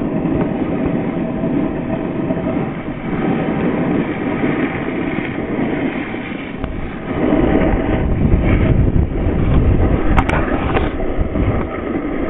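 Snowboard sliding and scraping over snow, a steady rumble with wind buffeting the microphone, louder from about seven seconds in. A couple of sharp knocks come near the end.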